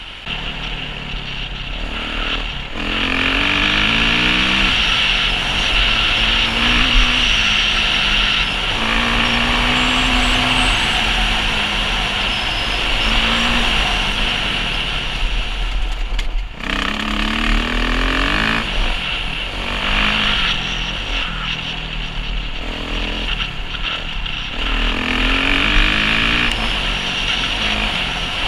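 Kawasaki dirt bike engine under way, heard from the bike itself: its pitch climbs and drops again and again as it revs up through the gears, over a steady rushing noise. There is a brief dip about sixteen seconds in.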